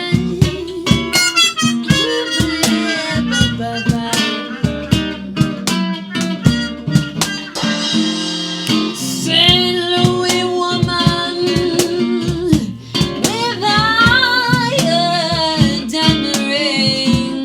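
Background music: acoustic guitar playing plucked notes with a harmonica line.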